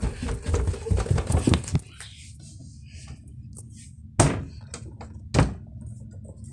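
Two heavy thuds about a second apart from a wooden interior door being handled. They follow a couple of seconds of jumbled handling noise.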